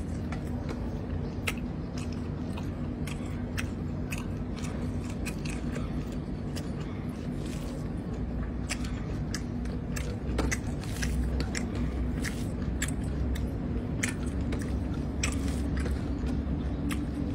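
Close-miked chewing and mouth smacking of a person eating rice with curry by hand, with many short wet clicks, over a steady low hum.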